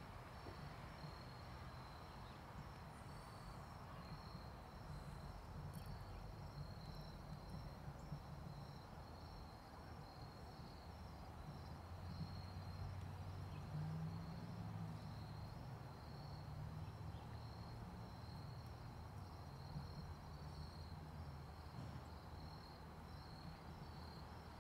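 Faint insect chorus: steady, rapid, even pulses of cricket-like chirping over a low rumble.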